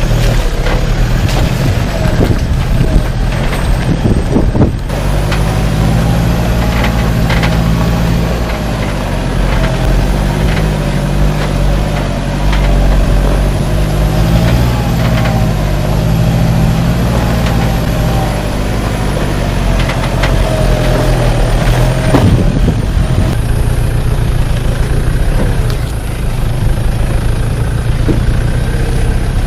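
A 4x4's engine running at low, slowly varying revs as it crawls along a rocky track, with scattered knocks and clunks from the vehicle over the rocks.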